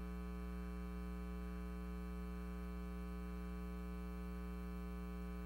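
Steady electrical mains hum with a buzzy stack of overtones, unchanging throughout, with no music or voice over it.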